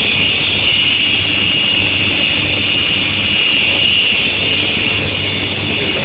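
Steady running noise of an induction quenching and tempering furnace line, a continuous high-pitched whine over a low hum.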